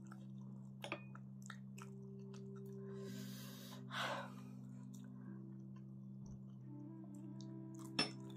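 Quiet eating sounds, with a few sharp clicks, mouth noises and a breathy burst about three to four seconds in, over soft background music of slowly changing held chords.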